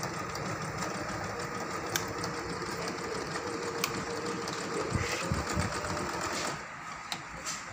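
Juki Liza 20Z computerised sewing machine running steadily, stitching a wide zigzag through fabric, with a few light clicks; it stops about six and a half seconds in.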